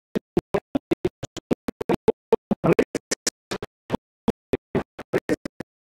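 A man's lecturing voice chopped into rapid short fragments with silent gaps between them, several a second, giving a stuttering, glitchy sound: the audio track is breaking up.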